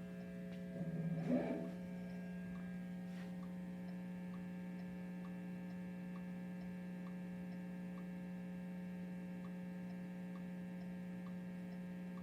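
Steady electrical mains hum from the recording setup, with faint ticks of a click track repeating about every two-thirds of a second. There is a brief louder sound about a second in.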